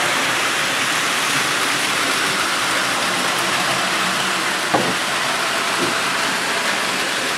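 Several battery-powered Plarail toy trains running at once on blue plastic spiral track, their small motors and wheels on the plastic making a steady dense noise. One short sharp click a little under five seconds in.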